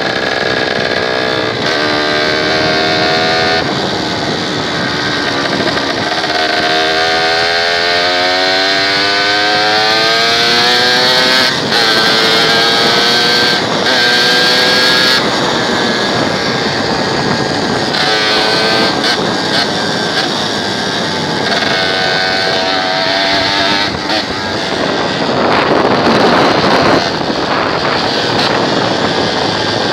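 Motorcycle engine running while riding, its pitch rising and falling with the revs, with a long climb in pitch about a third of the way in. Heavy wind noise on the microphone runs under it.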